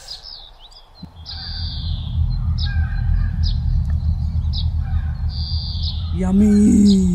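Birds chirping over and over, short high chirps about every half second, over a steady low rumble. Near the end a voice holds one note briefly.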